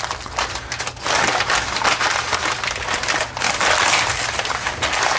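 Packing material crinkling and rustling in the hands as a BB gun is unwrapped, a dense run of crackles from about a second in.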